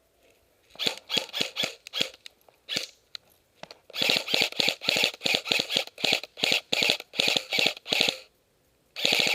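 Airsoft guns firing: a quick string of shots, a few single shots, then a steady run of shots at about three a second, and a short rapid burst near the end.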